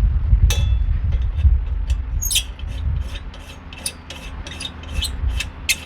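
Small clicks and taps of Coleman 242B lantern parts being handled and fitted back together, a dozen or so sharp ticks, over a steady low rumble.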